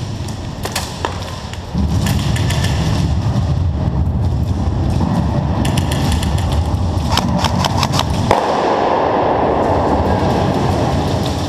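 Airsoft guns firing: scattered sharp pops and quick runs of shots, most packed together about five to seven and a half seconds in, over a steady low rumble on the microphone.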